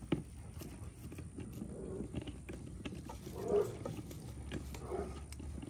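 A litter of American bully puppies moving and chewing in a wire playpen, with scattered small clicks and rustles and a few faint short puppy vocal sounds about two, three and a half and five seconds in.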